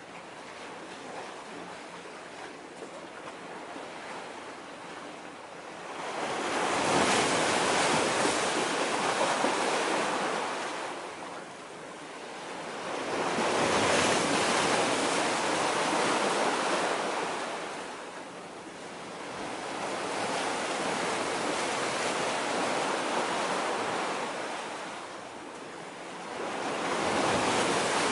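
Sea waves washing against concrete breakwater blocks: a low wash for the first few seconds, then four surges that each swell and fade, about every six to seven seconds.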